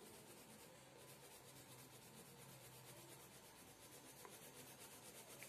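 Faint scratching of a colored pencil lightly shading on sketchbook paper, in soft back-and-forth strokes.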